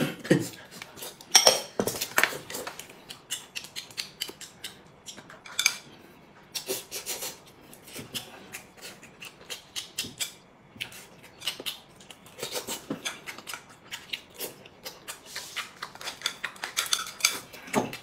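Chopsticks clicking and scraping against a porcelain bowl in quick, irregular taps as someone eats fast, with a few longer eating sounds of about a second each.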